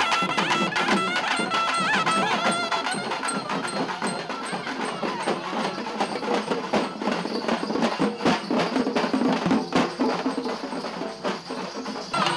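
Procession band music: wind instruments playing a melody over stick-beaten drums for the first few seconds, then mostly dense drumming. The sound cuts off suddenly just before the end.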